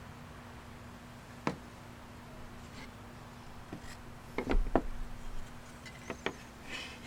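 Wooden pieces being handled, giving scattered sharp knocks and clicks: one early, a loud cluster in the middle and a couple more near the end. A faint steady hum runs underneath.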